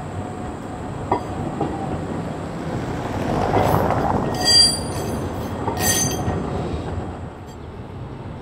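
Škoda 15T low-floor tram passing on street track, a rumble that swells and fades, loudest about four seconds in. Its wheels give two short high-pitched squeals on the curve, about four and six seconds in.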